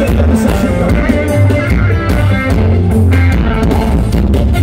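Forró band playing live through a concert sound system, loud, with a heavy, steady bass line under the melody.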